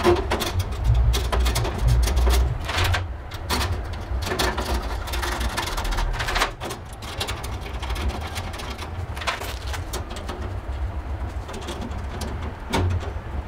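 Irregular metal clicks, knocks and rattles from a thin patch panel being fitted into a server cabinet's rack rails and screwed in with a screwdriver.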